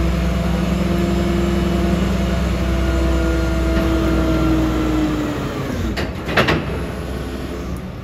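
Skip lorry's diesel engine running steadily with a deep rumble and a low hum that rises and falls slightly, then dies away about five seconds in. Around six seconds in comes a short burst of sharp clattering noise.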